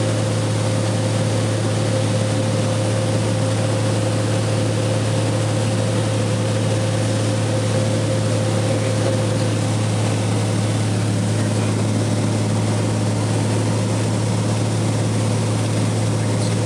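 Cessna 182's engine and propeller droning steadily in cruise, heard from inside the cabin, with a strong low hum and a steady higher tone.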